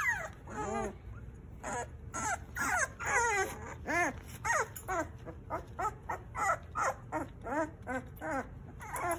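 Young puppies whimpering: a steady string of short high cries, each dropping in pitch, about two or three a second.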